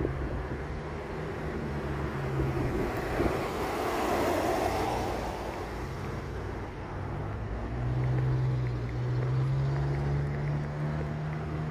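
Road traffic: a vehicle swishes past about four to five seconds in, over a steady low engine hum that grows stronger near the end.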